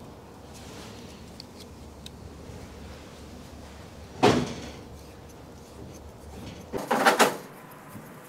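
Hand-tool work on a small-block Chevy 327 cylinder head while a Heli-Coil thread insert is wound into a bolt hole: one short sharp sound about four seconds in and a quick run of clatters near the end, over a low steady hum.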